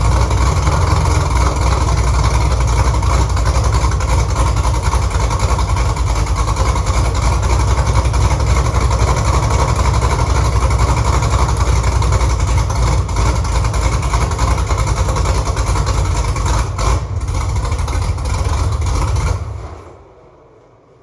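1968 Camaro's newly swapped 6.2-litre LS V8 idling steadily and loudly, then shut off about 19 seconds in, the sound dying away over about a second. The owner says the engine is running fairly rich while its engine management is still learning after first start-up.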